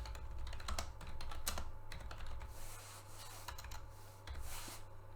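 Typing on a computer keyboard: an irregular run of key clicks, over a steady low hum.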